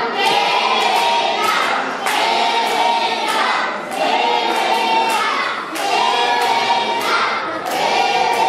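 A group of children singing or chanting together in unison, loudly, repeating a short phrase about every two seconds.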